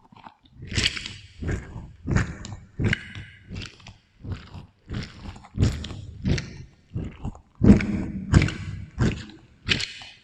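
Close-miked biting and chewing of juicy fruit, a steady run of wet crunches about one to two a second, with an echo effect laid over each.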